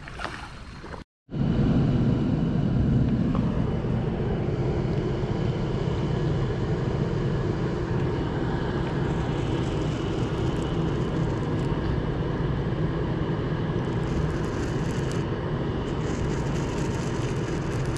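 Steady low diesel drone of a river towboat's engines, starting suddenly about a second in and holding an even level.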